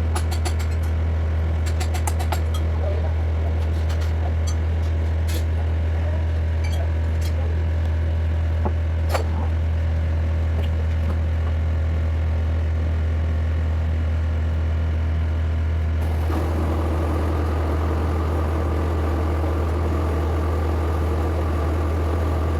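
Doosan excavator's diesel engine running with a steady low drone and scattered metallic clinks. About two-thirds of the way through, a louder rushing noise with a steady whine joins in.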